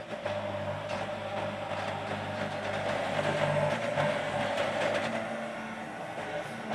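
Yanmar mini excavator's diesel engine running steadily under hydraulic load as the arm digs and swings, getting somewhat louder around the middle.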